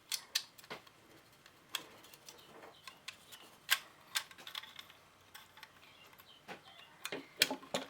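Irregular light clicks and taps of small metal parts as the shotgun's forend nut is fitted onto its Magpul removal tool to be threaded back onto the magazine tube; about ten clicks, unevenly spaced.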